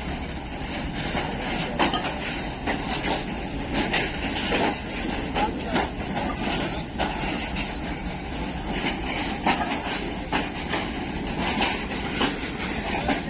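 Sir Syed Express passenger train rolling by, its coach wheels clacking irregularly over rail joints above a steady rumble.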